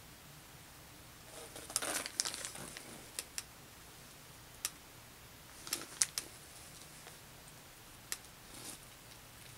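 Faint handling noise of a fashion doll and its packaging: a short rustle about two seconds in, then a handful of small sharp clicks and taps spread through the rest.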